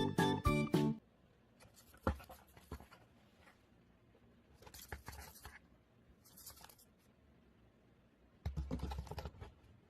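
Background music cuts off about a second in. Then come scattered short scratching and rustling noises with a sharp click, and a louder stretch of rustling near the end.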